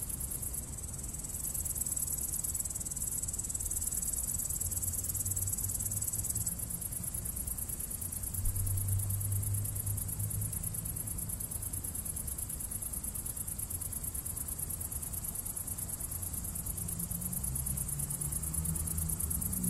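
High, steady insect chirring, with a low rumble underneath.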